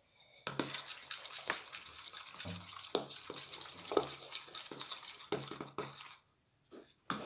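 Spoon scraping and stirring thick glue slime mixture in a plastic pot: a continuous rasping with small clicks, stopping about six seconds in.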